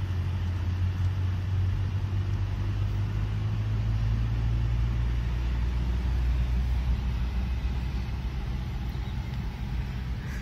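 Car engine and road noise heard from inside the cabin while driving, a steady low drone whose pitch drops a little about four seconds in.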